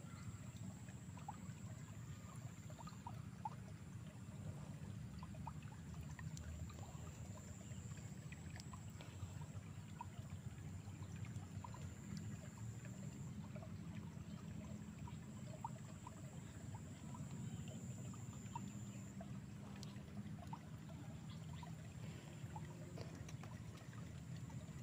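Faint outdoor ambience: water trickling in a rice-field irrigation ditch, with a thin steady high tone that drops out now and then and a few faint small ticks.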